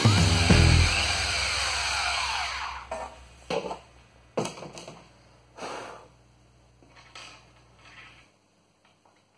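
Power drill driving a screw into a router table top, its motor whining for about two and a half seconds before it stops. A few light knocks and clicks follow as the drill is set aside and loose screws are handled on the table top.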